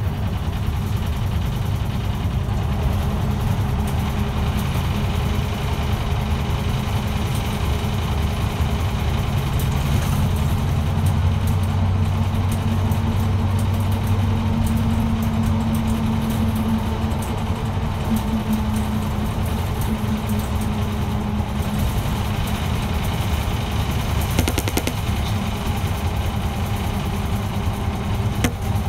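Route bus engine running with a steady low hum, heard from inside the passenger cabin.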